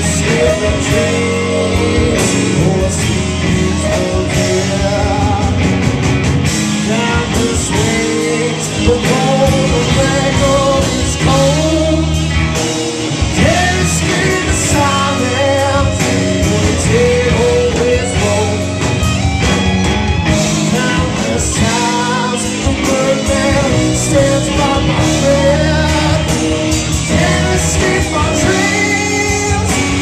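A live rock band playing loud: a vocalist singing into a handheld microphone over electric guitars and drums.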